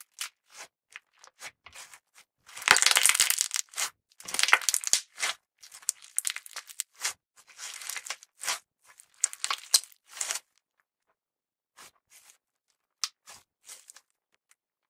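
Purple clear slime with glitter and sequins being squeezed, pressed and folded by hand, giving sticky crackling and popping clicks. The crackling is densest a few seconds in, then thins to a few scattered clicks after about ten seconds.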